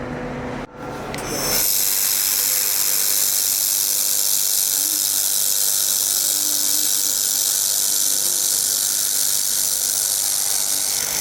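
Laser welding machine in operation: a loud, steady hiss, mostly high-pitched, that starts about a second and a half in and holds evenly.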